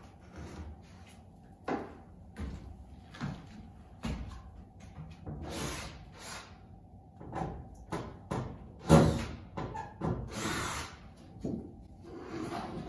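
Irregular wooden knocks, bumps and scraping as a thin plywood bulkhead template is shifted and worked into place, with the loudest knocks about nine and ten seconds in.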